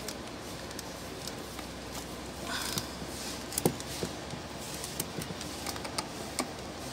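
Light, scattered clicks and taps of a scissors blade and a small glue bottle being handled, over a steady background hiss, with a brief rustle near the middle.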